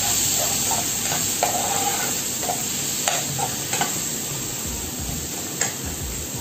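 Chopped tomato, onion, garlic and ginger sizzling in oil in a frying pan, being sautéed until soft. A metal spoon stirs them, scraping and clicking against the pan a few times.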